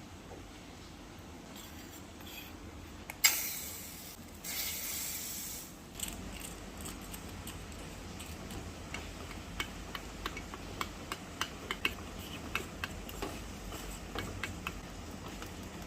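Kitchen sounds from making a small batch of fried cookies: a sudden hiss about three seconds in that dies away, a second hiss that lasts about a second and a half, then a run of light clicks and taps of utensils against dishes.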